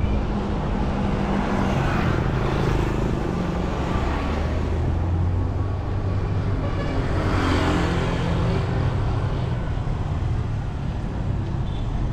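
Street traffic: a steady motor-vehicle engine hum, with vehicles passing by about two seconds in and again around seven to eight seconds in.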